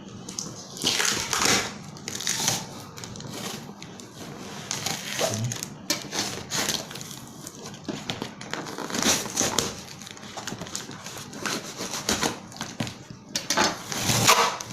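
Parcel packaging being torn open and handled: irregular crinkling, crackling and tearing, with louder rips about a second in, around nine seconds in and near the end.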